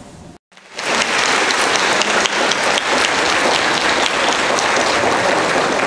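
Audience applauding: dense clapping that starts abruptly just under a second in and holds steady.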